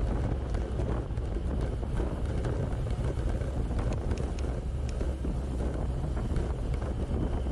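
Wind rumbling on the microphone, with faint scattered ticks and clicks over it.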